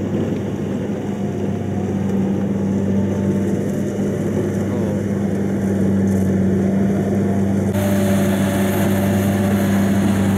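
Kubota DC-70G rice combine harvester engines running at a steady drone. About eight seconds in the sound comes closer, and a brighter rushing noise from a harvester cutting through the standing rice joins the hum.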